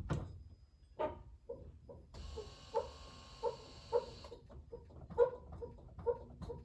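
A 2018 Toyota Highlander Hybrid's brakes squeaking as the pedal is pressed at a standstill with the engine off: a string of about a dozen short squeaks, with a brief hiss partway through. The owner cannot trace the cause.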